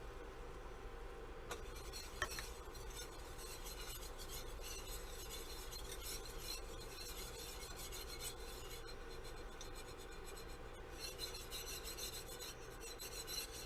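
Soft, steady rasping and scraping as flour is shaken into melted butter and worked in the pot to make a roux, with a couple of light clicks about two seconds in.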